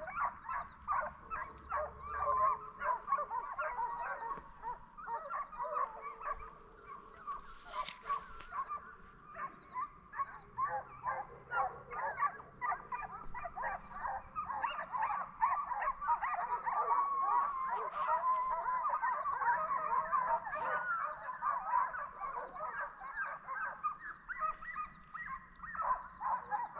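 A pack of deer hounds baying on the trail of a deer, many short overlapping cries going on and on.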